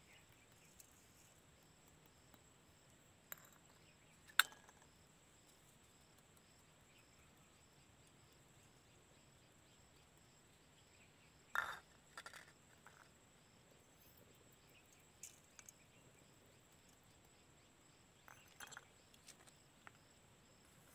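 Near silence broken by a few faint clinks of stainless steel bowls against a steel plate as spices are tipped into minced meat. The sharpest clink comes about four seconds in, and a short cluster of clinks follows near the middle.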